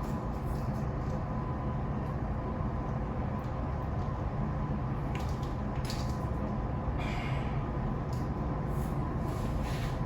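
Yamaha 540 two-stroke snowmobile engine running steadily, with a few sharp clicks and knocks and a short hiss about seven seconds in.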